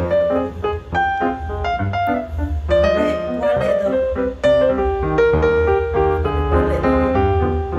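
Background music: a piano-led tune with quick successive notes over a steady bass.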